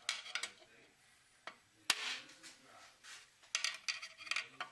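Ball-peen hammer tapping a screwdriver to seat a tapered snap ring in its groove inside an aluminium automatic-transmission case (Ford 6R80). Scattered sharp metallic taps and clicks, the loudest about two seconds in with a short ring, then a brief scrape of the tool and a quick run of clicks near the end.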